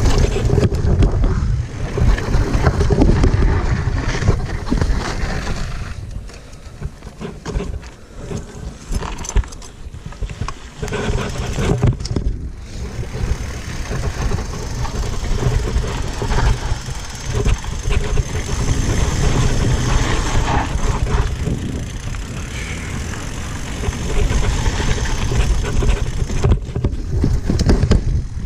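Mountain bike rolling down a dirt trail: a rough, uneven rumble and rattle of tyres and frame that swells and fades, quieter for a stretch in the middle.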